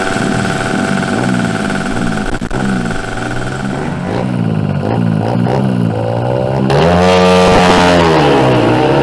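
Two-stroke Yamaha scooter with an expansion-chamber exhaust, alongside a Bajaj Pulsar NS200, revving at a drag-strip start line before the launch. The throttle is blipped up and down again and again, then the engines get louder and are held high about seven seconds in.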